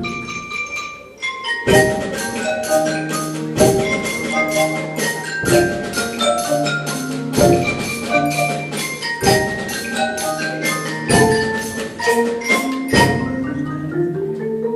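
Live ensemble music made of sharply struck pitched notes in a repeating rhythmic figure, with a strong accent about every two seconds.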